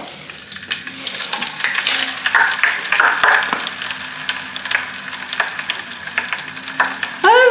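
Mr. Bubble Magic Bath Crackles crystals popping in water: a dense, frying-like crackle with many sharp little snaps and pops, continuous as the crystals dissolve.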